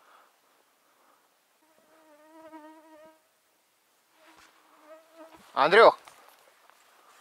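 A small flying insect buzzing close by with a wavering pitch, twice, the first pass about a second long. Near the end a man shouts once, loudly.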